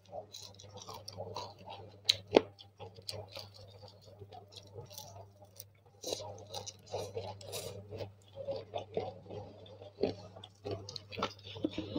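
Close-up chewing of a deep-fried eggplant fritter (bakwan terong), with wet mouth clicks and small crunches throughout and one sharp louder click about two seconds in. A low steady hum runs underneath.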